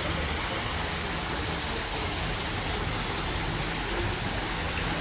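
Water cascading down an artificial rock-wall waterfall fountain: a steady rushing, splashing noise.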